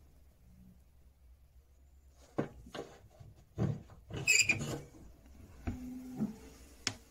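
Cast-iron wood-burning stove door being unlatched and swung open: several knocks and clicks of the latch and door starting about two and a half seconds in, the loudest a scraping metal clank about four seconds in, then a short squeak and a final click.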